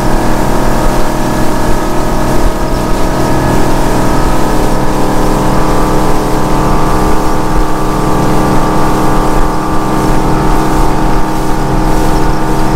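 Chaparral 276 SSX bow rider's sterndrive engine running steadily at full throttle near its top speed of about 47–48 mph, trimmed partway up: a constant, unchanging drone with several steady tones over a rush of wind and water.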